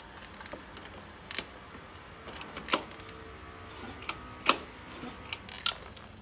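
Sharp metal clicks and knocks, about six spread unevenly, from hand work with a tool on a stopped lawnmower engine; the engine itself is not running. The loudest knocks come a little before and a little after the middle.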